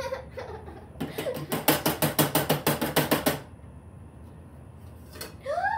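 Rapid, even tapping on the bottom of an upturned metal heart-shaped cake pan, about six or seven taps a second for about two and a half seconds, to knock the baked cake loose onto a wire cooling rack. Near the end a girl gives a short rising-and-falling "ooh".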